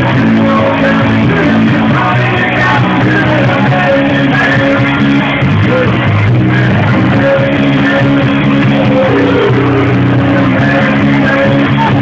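Live rock band playing loudly, electric guitar to the fore.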